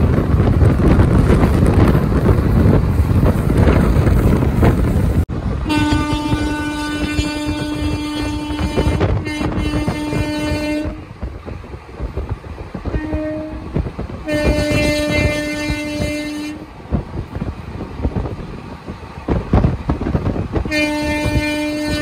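Train horn sounding at one steady pitch. First a long blast broken briefly, then a short toot, another long blast and a final long blast near the end, over the rumble of the moving train. Before the first blast there are several seconds of wind buffeting the microphone and the train running.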